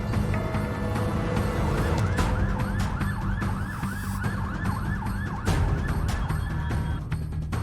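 Emergency vehicle siren in a fast yelp, sweeping up and down about three times a second. It starts about a second and a half in and stops near the end, over a low music bed.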